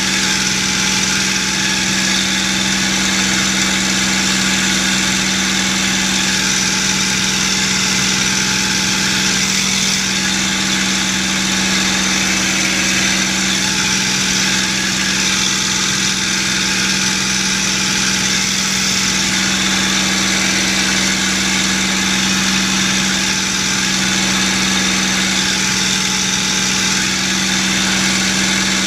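P-51 Mustang's Merlin V12 engine and propeller running steadily in flight, heard from inside the cockpit as a constant deep hum over a haze of rushing air.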